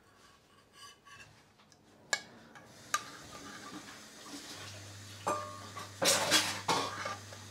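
A metal spoon clinking and scraping against a pot and plates as curry and its sauce are ladled out, with wet sloshing. Two sharp clinks come about two and three seconds in, and a louder run of scraping and clatter comes near the end.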